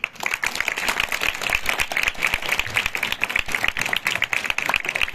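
Audience applauding, many hands clapping in a dense, fast patter.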